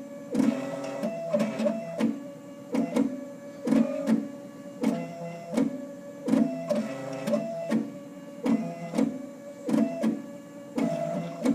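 Stepper motors of a Sherline CNC mill whining as the axes step through an engraving program. The whine jumps between pitches in short moves a fraction of a second apart, and each move starts or stops with a click.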